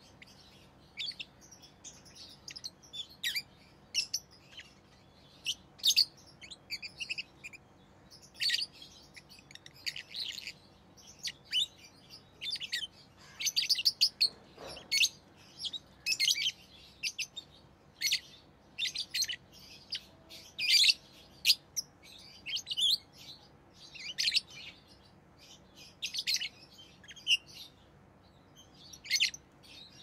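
Rosy-faced lovebirds chirping: a busy run of short, sharp, high chirps in quick irregular clusters.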